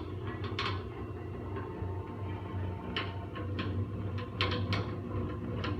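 A steady low electric hum with a series of light clicks and taps, clustered from about three seconds in.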